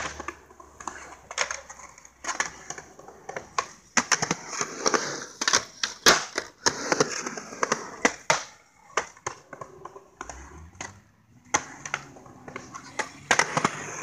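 Skateboard on a concrete skatepark: wheels rolling with a steady hiss, broken by many sharp clacks of the board striking the concrete, the loudest about six seconds in.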